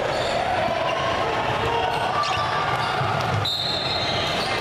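Indoor basketball game noise echoing in a gym: a basketball bouncing on the hardwood court under a steady hall din, with a short high squeak about three and a half seconds in.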